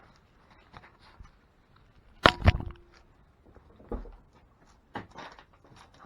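Scattered small clicks and knocks of something being handled, with two sharp, loud clacks close together a little over two seconds in.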